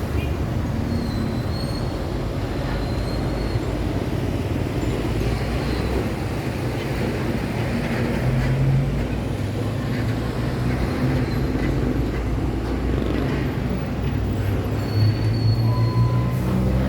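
Steady road traffic: heavy trucks and other vehicles passing with a continuous rumble of engines and tyres. A lower engine drone swells about halfway through and again near the end as big vehicles go by.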